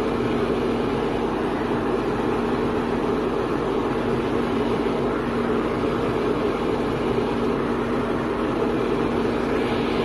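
Grigory Fedotov manicure dust extractor's fan running steadily at full speed, a constant whir with a low hum, with filter sheets laid over its intake grille; its suction stays strong despite the added filters.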